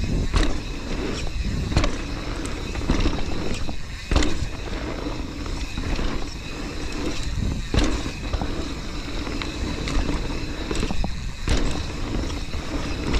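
Mountain bike clattering and rattling down a rough, rocky trail at speed, tyres and frame taking a steady stream of sharp knocks over a heavy low rumble.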